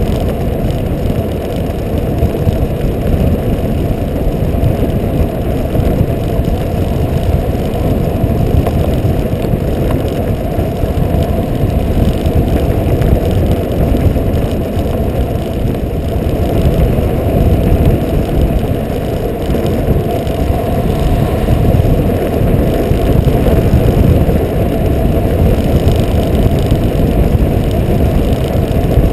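Kite buggy rolling fast over firm beach sand: a loud, steady, low rumble of wind buffeting the buggy-mounted camera's microphone together with the wide tyres running on the sand.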